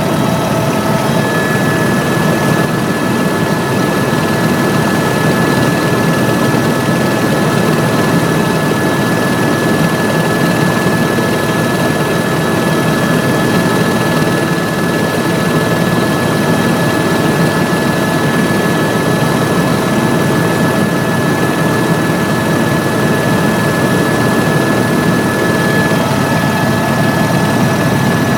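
Helicopter running in steady flight: a constant drone of engine and rotor noise with a steady high whine over it.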